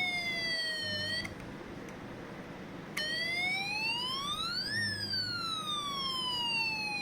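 Electronic fire-engine siren from an alarm module driving a small speaker in a snap-together electronics kit: a wailing tone that rises quickly and falls slowly. It cuts out for under two seconds about a second in, then starts again low and sweeps up and back down.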